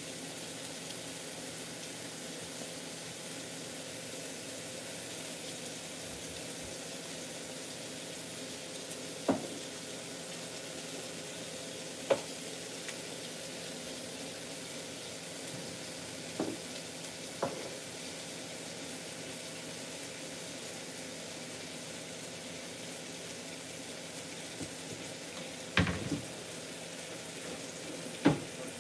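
Ground beef frying in a pan on the stove, a steady sizzle. Over it come about six short, sharp knocks from kitchen cupboards and a drawer being opened and shut.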